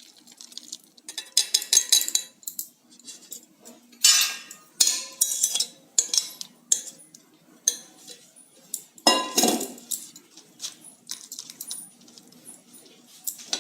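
Metal kitchen utensils clinking and scraping against a pot as hot kadha is strained: a run of irregular sharp clinks and taps, some ringing briefly, with a heavier clatter about nine seconds in.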